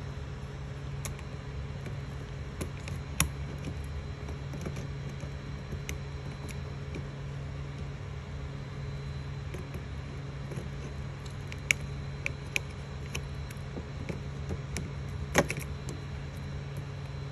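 Steady low hum from a Creality Ender 3 3D printer, with scattered light plastic clicks and taps from a hand pressing the extruder's spring-loaded arm and working the filament. A few sharper clicks come in the second half.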